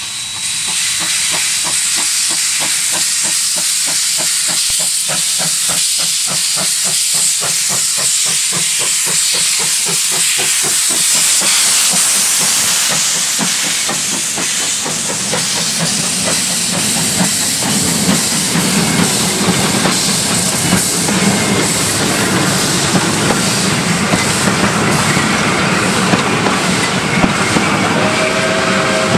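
Queensland Railways DD17 class steam locomotive 1051 passing close by under steam: rapid exhaust beats over a loud steam hiss as it approaches, then its carriages rumbling past with wheels clicking over the rail joints in the second half.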